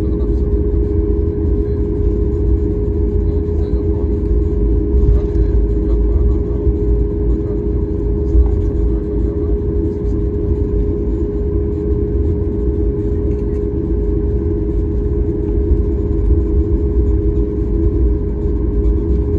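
Cabin noise of a Boeing 737 taxiing: a steady drone from the jet engines at taxi power, with a constant hum and a low rumble as the airliner rolls along the taxiway.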